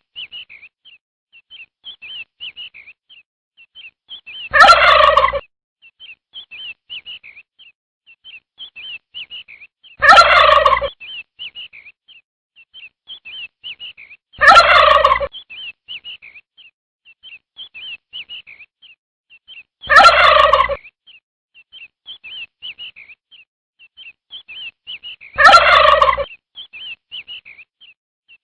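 Month-old chicken chicks peeping continuously with short high chirps. Five times, about every five and a half seconds, a much louder fowl call of just under a second cuts in over the peeping.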